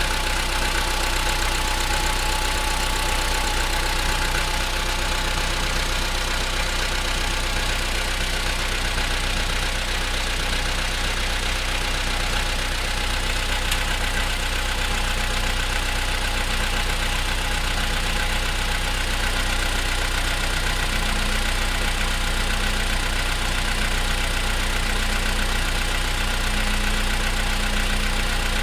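Engine idling steadily while cold, with the knocking noises that show up on a cold engine.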